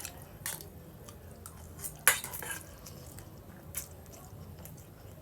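Cutlery tapping and scraping on a plate while eating spaghetti: a few light clicks, with one sharper clack about two seconds in.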